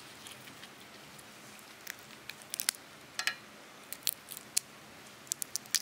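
Raw prawn being shelled by hand: scattered small crackling clicks as the thin shell snaps and tears away from the flesh.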